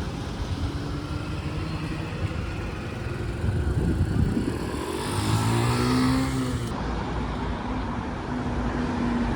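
Road traffic on a city street, with vehicles running steadily. About five seconds in, one vehicle's engine note grows louder and shifts in pitch as it passes close.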